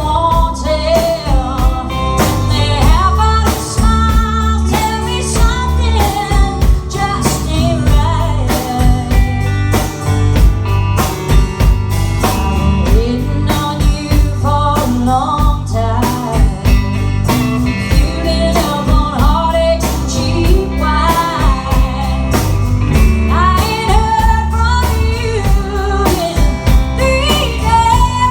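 A band song playing: a steady drum-kit beat and guitar, with a sung melody over them.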